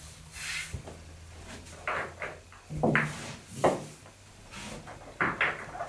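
Billiard balls being set down one after another on a pool table's cloth, a series of soft knocks and short rolls.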